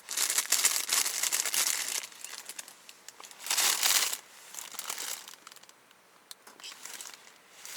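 Crinkling of a thin wrapper or packaging being handled, in a long burst at the start, another about three and a half seconds in, and lighter rustles after.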